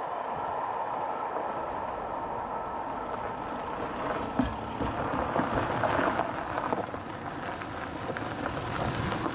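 Car driving across a level crossing on a gravel road toward the microphone, tyres crunching on the gravel, with one sharp thump about four and a half seconds in as it comes over the crossing.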